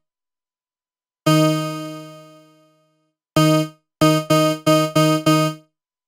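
Kilohearts kHs ONE software synthesizer sounding a bright note at one low pitch. A single note comes in about a second in and fades away over about a second and a half. Then comes a short note, and then five quick repeated notes at the same pitch.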